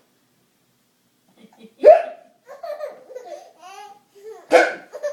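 Two sudden, sharp hiccups about two and a half seconds apart, with laughter between them.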